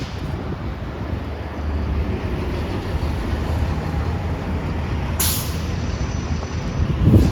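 Transit bus engine running at low speed, with a short sharp hiss of air brakes about five seconds in. A loud low thump comes near the end.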